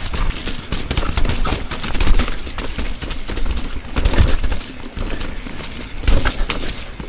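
Transition Relay e-mountain bike riding down a rough dirt trail: a low rumble of tyres on dirt, with irregular clattering knocks and rattles from the bike as it hits roots and rocks.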